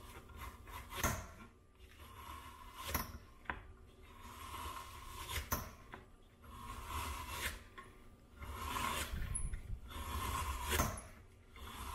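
Manual stainless-steel meat slicer's lever blade cutting through a block of partly frozen beef in repeated strokes: a rasping scrape as the blade passes through the meat, with sharp clicks between strokes.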